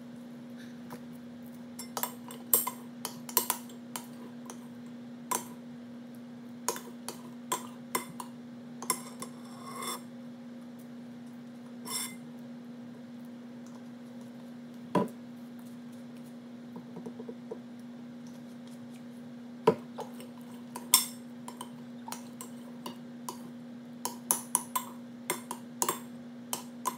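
Metal spoon clinking and scraping against a glass jar as slime glue and activator are stirred, in irregular sharp clinks with a steady low hum underneath.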